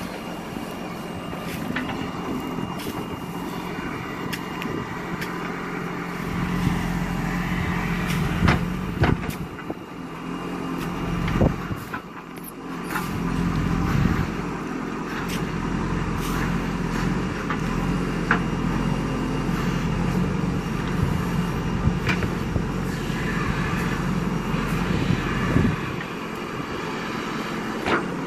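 JCB 3DX Super backhoe loader's diesel engine running under work, its level dipping and climbing back twice around the middle, with sharp knocks scattered through, the loudest about a third of the way in and near the end.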